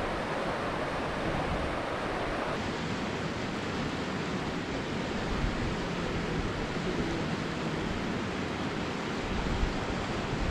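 Shallow river rapids rushing steadily, with low wind buffeting on the microphone.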